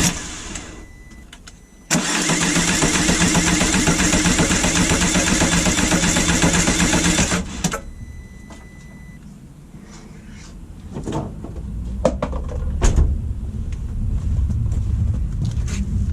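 A loud, steady motor runs, cuts out just after the start, comes back suddenly about two seconds in and stops again about halfway through. This is followed by a low rumble with a few sharp knocks.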